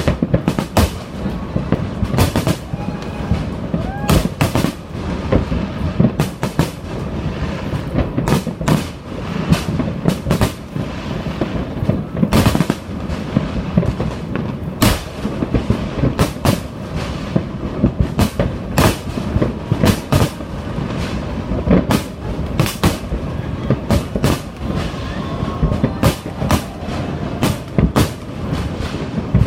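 Fireworks bursting in quick, irregular succession, many sharp bangs over a continuous low rumble, with crowd voices underneath.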